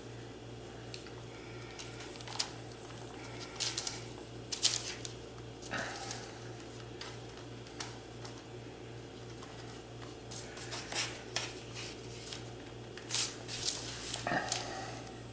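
Scattered light taps, knocks and rustles of hands working puff pastry into a metal tart ring on a parchment-lined aluminium sheet pan, over a steady low hum.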